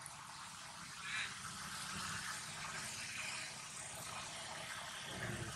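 Faint, steady outdoor background hiss with a low engine hum from distant road traffic.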